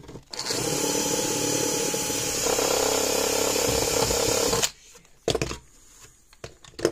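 Cordless drill spinning a step drill bit through a plastic case, widening a hole a little at a time. It runs steadily for about four seconds, gets louder partway through, then stops suddenly; a couple of sharp clicks follow.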